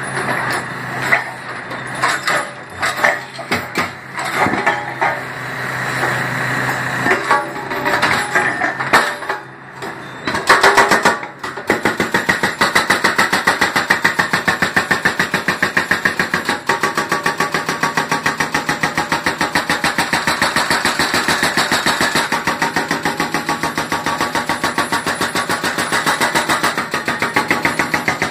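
Backhoe-mounted hydraulic breaker hammer on a concrete road. For about the first ten seconds the machine's engine runs with irregular knocks and clanks, then a loud burst comes. About eleven seconds in, the breaker starts hammering rapidly and evenly into the concrete and keeps going.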